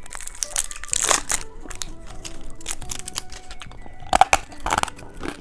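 Plastic candy packaging crinkling and crackling in irregular bursts as it is handled and opened, with louder crackles about a second in and again near the end.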